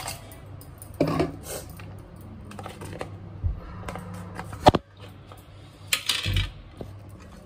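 Knocks and clinks from a steel mixer-grinder jar and its plastic lid being handled and set down: a few separate strikes, the sharpest about two thirds of the way in, with a short clatter near the end. The grinder motor is not running.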